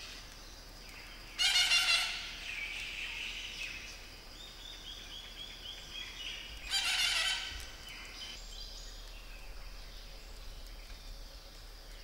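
Rose-breasted parakeets at a tree-hollow nest giving two loud, harsh screeches about five seconds apart. A run of quieter quick chirps falls between them, over a steady high-pitched background drone.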